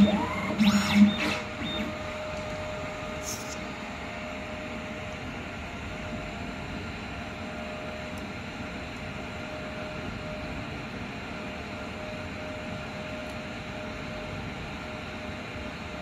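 Automatic coaxial cable cutting and stripping machine running a cycle: a quick run of loud mechanical clacks with a buzzing motor during the first second or so. Then it stops, leaving a steady low hum with a faint constant tone.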